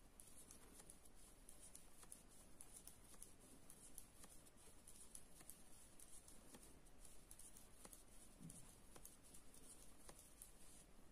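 Faint, irregular clicking and light rubbing of metal knitting needles working wool yarn in garter stitch, close to near silence.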